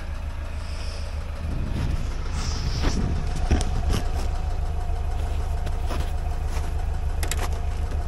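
Lada Niva VAZ-21213 engine idling steadily, with a few sharp knocks and crunches of footsteps on the snowy ground from about three seconds in.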